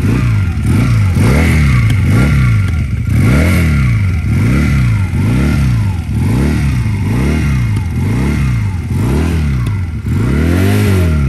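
Rebel 150 cruiser motorcycle engine revved in repeated throttle blips through a lightly gutted pair of mufflers, about one rise and fall a second. The last blip near the end is longer and higher.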